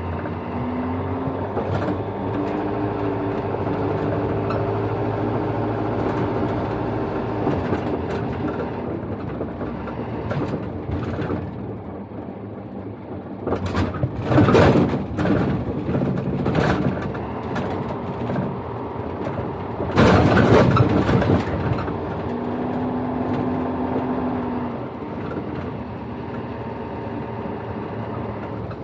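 A microbus-based dual-mode vehicle running in bus mode on the road, heard from inside the cabin: engine and tyre noise, with the engine note shifting in pitch. Twice, about halfway and about two-thirds through, a short, much louder swell of noise rises over it.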